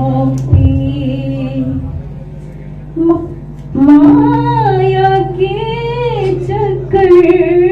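A woman singing solo into a microphone, holding long notes whose pitch wavers. The singing drops away for a moment about two seconds in and comes back strongly near the middle, over a steady low hum.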